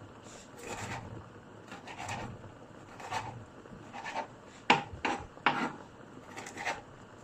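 Knife chopping fresh coriander on a chopping board: a series of irregular cuts, roughly one every half second to a second, with two sharper, louder strikes a little past the middle.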